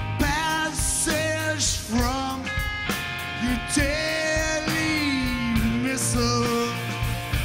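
A live rock band playing: a man sings lead over electric guitar, bass guitar and drums.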